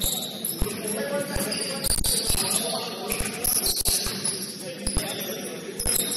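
Basketball game on a gym court: sneakers squeaking on the hardwood, with irregular low thuds of the ball bouncing and feet landing.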